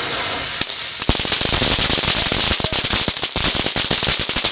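Ground fountain firework spraying sparks with a steady hiss, breaking about a second in into a dense run of rapid crackling pops.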